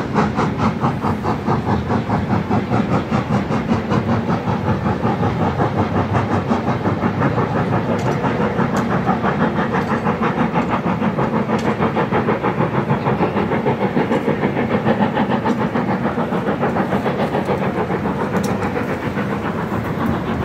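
Steam locomotive pulling a train away, its exhaust chuffing in a steady, even rhythm, with steam hiss underneath.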